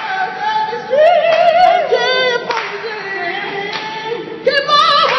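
Two men singing a cappella together, deliberately hammed up and off-key, holding long wavering notes with vibrato.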